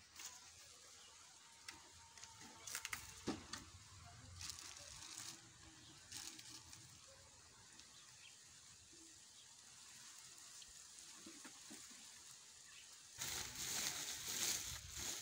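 Faint outdoor background with a few light clicks and rustles. About thirteen seconds in, a louder rustling starts as a hand reaches into a woven plastic sack of maize flour.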